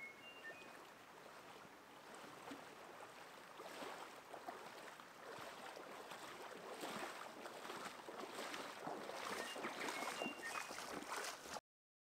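Water splashing and sloshing around a person's legs as they wade step by step through shallow river water, growing louder as the steps come closer, then cutting off suddenly near the end.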